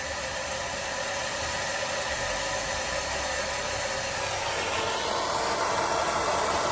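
A jeweller's soldering torch flame hissing steadily as it heats a solder join. It grows louder and fuller about five seconds in.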